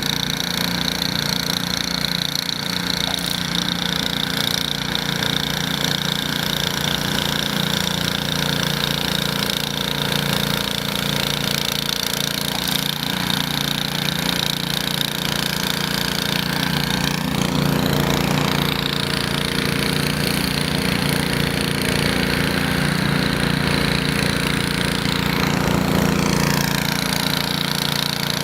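Small gasoline engine of a snowblower running steadily while clearing snow. Its pitch shifts briefly twice, about two-thirds of the way through and again near the end.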